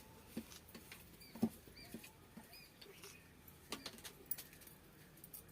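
Faint eating sounds: scattered clicks and small knocks of hand and food on a plate along with chewing, the sharpest knock about a second and a half in. Short high chirps come and go between them.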